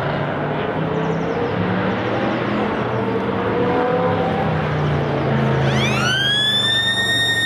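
Racing car engines running, several engine notes overlapping and shifting in pitch. Near the end a loud, high, siren-like tone glides up quickly and then holds steady over them.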